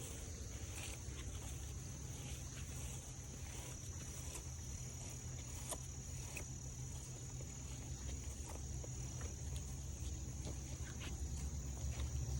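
A steady, high-pitched insect chorus runs continuously over light, irregular footsteps on the trail, with a low rumble underneath.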